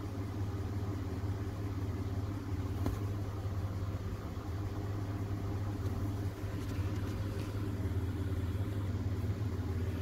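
Mitsubishi Pajero's 3.0-litre V6 engine idling steadily, with an even low hum.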